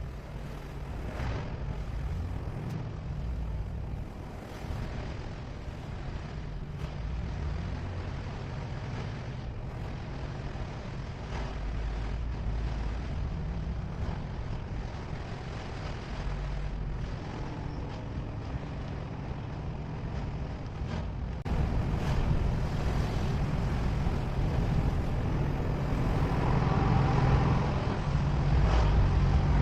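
Vehicle driving on a road: a steady low rumble of engine and tyres with a noisy hiss above it. It gets louder about two-thirds of the way in and again near the end.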